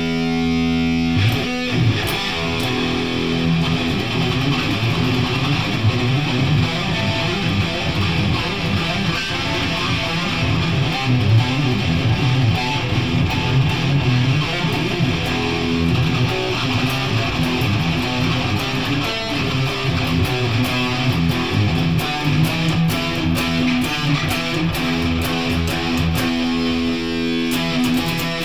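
Electric guitar music: a held chord for about the first second, then busy strumming and picking.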